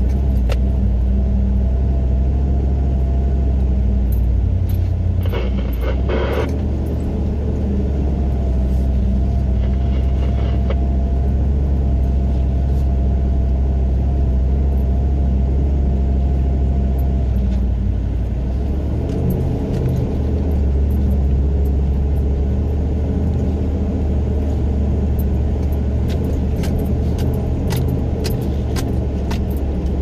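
A four-wheel drive's engine running steadily at low speed on a rough dirt climb, probably in low range, heard from inside the cab. A faint whine comes and goes over the engine, the engine note changes about two-thirds of the way through, and brief rattles and many sharp clicks come from the vehicle jolting over the track.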